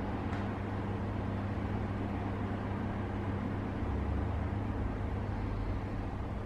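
Steady low background rumble with a constant low hum and no distinct events.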